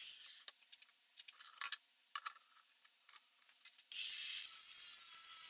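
An angle grinder's cut stops just after the start. Then come scattered small clicks and metal rattles as the steel hammer head is handled in the vise. About four seconds in, the cordless 4.5-inch angle grinder cuts into the hammer head again with a steady, high grinding hiss.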